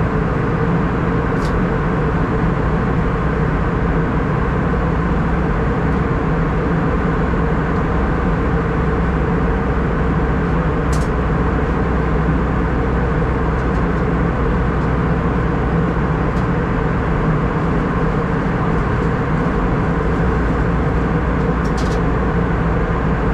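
Steady cabin noise aboard an Airbus A319-114 airliner: an even rush with a constant low hum. Three faint, short clicks sit on top of it.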